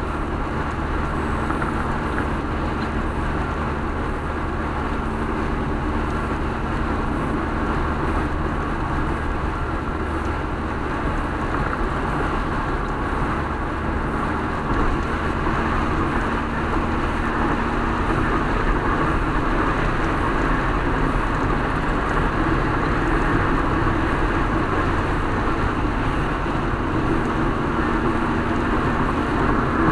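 Steady road noise inside a car driving on a wet highway: tyre hiss on the wet pavement over a constant engine hum, growing slightly louder about halfway through.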